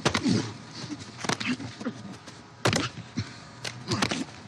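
Movie fight sound effects of two men struggling hand to hand: a string of sharp hits and scuffles, the loudest about two-thirds of the way through, with grunts and strained breathing between them.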